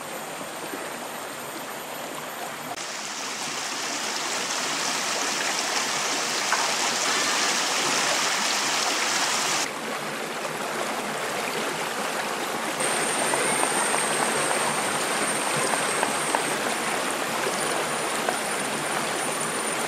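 A shallow stream running over rocks, a continuous rush of water. Its loudness and brightness change abruptly a few times, about 3, 10 and 13 seconds in.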